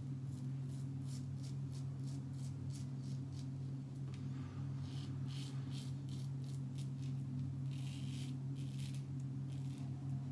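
Double-edge safety razor with a King C. Gillette blade scraping through lathered stubble in short, quick strokes, shaving against the grain, in two runs with a brief pause between them. A steady low hum sits underneath.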